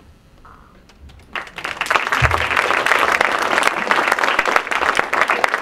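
Audience applauding. It starts about a second in after a quiet moment and quickly swells to steady, full clapping.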